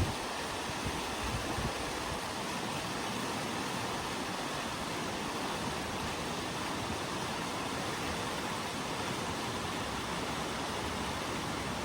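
Little Mashel River rushing: a steady, even noise of flowing water, with a few low thumps in the first couple of seconds.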